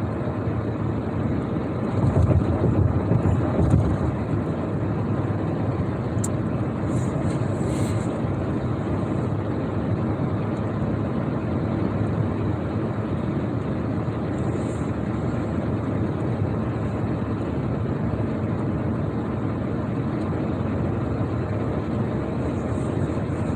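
Steady road noise heard from inside a vehicle's cab while cruising at highway speed, a low, even rumble.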